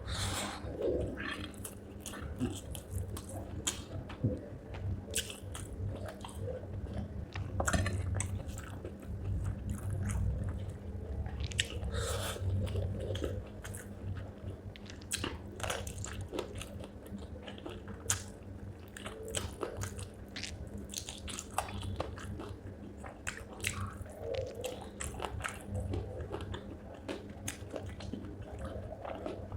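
Close-miked chewing and biting of spicy chicken feet curry with rice: irregular wet smacks and crunches of cartilage and small bones, with a low steady hum underneath.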